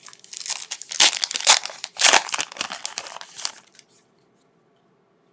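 A trading card pack's wrapper crinkling as it is handled and torn open, with a busy run of crackles that stops about three and a half seconds in.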